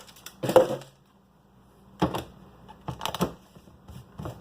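Ice cubes knocking and clinking as they are pushed into a NutriBullet blender cup. There is a loud knock about half a second in, then a run of smaller clicks and clatters.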